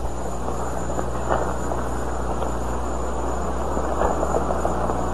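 Steady low hum and hiss of an old television soundtrack's background, with a faint click or two.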